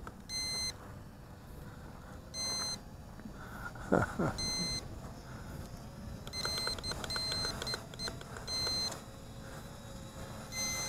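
Short electronic beeps from the drone's handheld remote controller, sounding in a few spaced groups and in a quick run near the end, while the LH-X28WF GPS drone flies its automatic return to home and landing. A brief falling squeak sounds about four seconds in.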